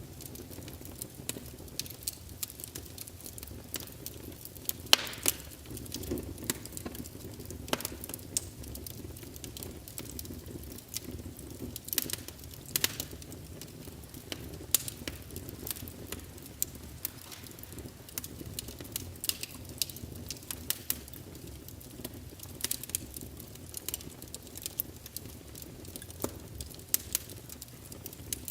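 Wood fire burning with a steady low rumble, crackling with frequent irregular pops. The sharpest pops come about five and twelve seconds in.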